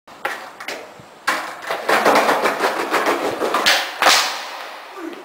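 Skateboard wheels rolling and clattering over ribbed pavement tiles, then a sharp crack about four seconds in as the board is popped for a hardflip, with the rolling fading away after it.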